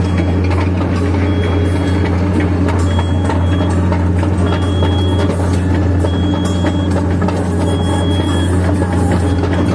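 Excavator's diesel engine running steadily, heard from inside the cab, with the travel alarm giving one high beep about every one and a half seconds as the machine tracks along.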